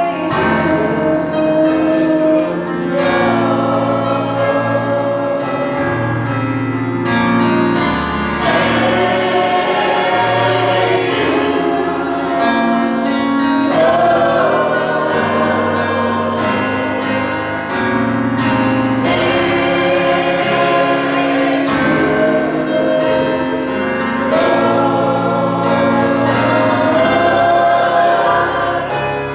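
Church choir singing a gospel song with instrumental accompaniment and a steady bass line.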